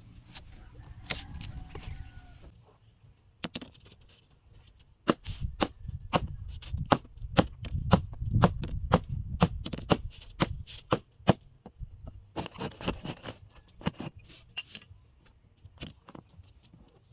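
A blade chopping into a young coconut: a quick run of sharp strikes, about two to three a second, in the middle, with scattered single strikes before and after.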